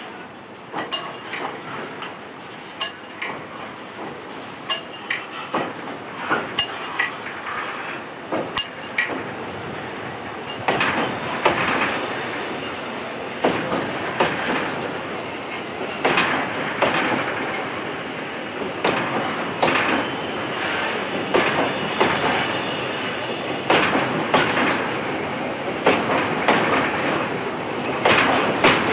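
Coal train's hopper wagons rolling slowly past on the rails, with wheels clacking over rail joints and metal clinking. Sparse clinks at first; from about ten seconds in the rolling is louder and the clacks come more often as the wagons run alongside.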